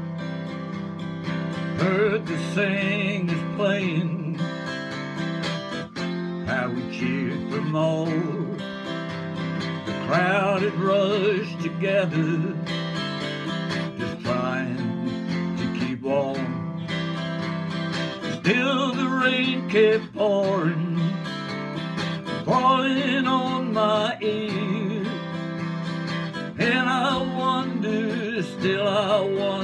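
A man singing in wavering phrases a few seconds apart over a strummed round-backed acoustic guitar with a multi-soundhole top.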